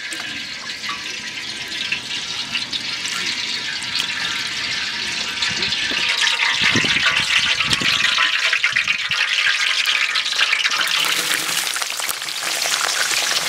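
Cooking oil poured into a large aluminium cooking pot, crackling and sizzling as it heats, the hiss growing stronger over the first few seconds. Near the end sliced onions are tipped into the hot oil.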